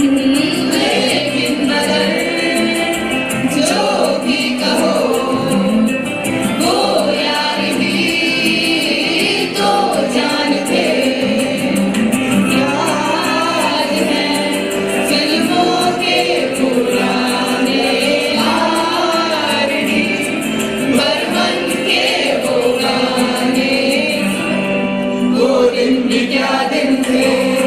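A mixed group of teenage boys and girls singing a song together in chorus through microphones on a stage's sound system.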